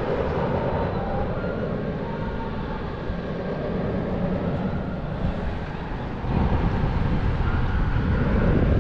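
Fairground thrill ride running: a steady mechanical hum with a faint whine over it. About six seconds in, heavier wind rumble on the microphone comes in and stays.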